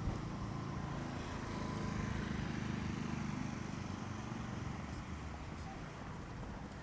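Low engine hum of passing motor traffic, swelling about two seconds in and fading slowly toward the end.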